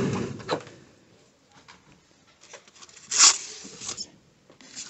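Plastic bags and sleeves rustling as items are handled, with a louder crinkle about three seconds in and a short knock at the very end.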